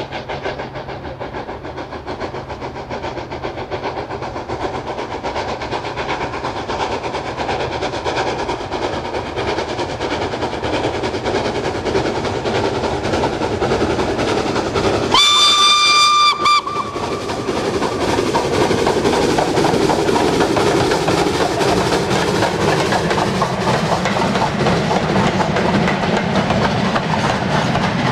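LNER K4 No. 61994 'Great Marquess', a three-cylinder steam locomotive, working a goods train as it approaches and passes, its running growing steadily louder. About halfway through, its whistle sounds one blast of about a second and a half. Near the end the goods wagons roll past with a clickety-clack.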